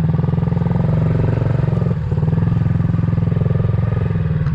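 Small motorbike engine running steadily with a rapid even pulse, easing off briefly about two seconds in.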